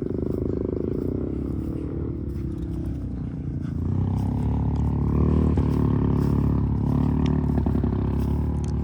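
An ATV engine running steadily, its pitch easing down slightly before it gets louder about four seconds in.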